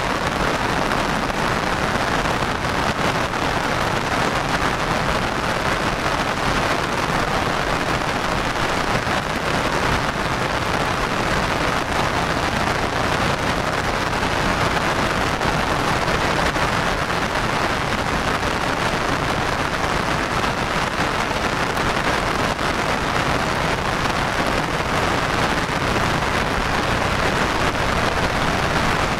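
Heavy monsoon rain falling steadily, an even hiss without a break.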